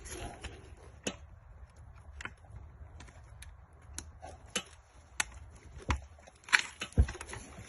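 Scattered sharp clicks and small knocks of plastic parts being pried and pulled out of a Range Rover Evoque's removed door lock and handle assembly by hand, irregular, with a few louder snaps in the second half.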